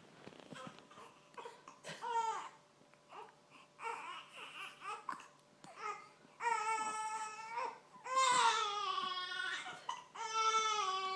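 Baby fussing with short hiccups and whimpers, then breaking into crying about six seconds in: three long wails, each falling in pitch at the end.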